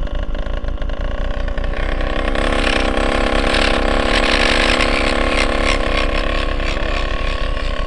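27cc two-stroke petrol engine of an RC truck running steadily at a fairly constant pitch, growing louder for a few seconds in the middle.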